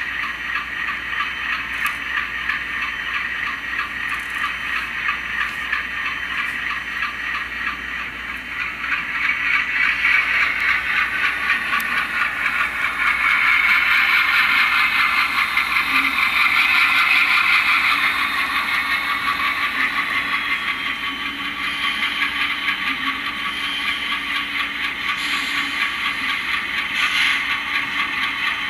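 Atlas C424 model diesel locomotive's factory LokSound decoder playing the sound of a 12-cylinder Alco 251 prime mover through the model's small onboard speaker, with a fast, even chugging beat, as the model runs along the track. The sound grows louder from about a third of the way in and eases off again after the middle, peaking as the model passes closest.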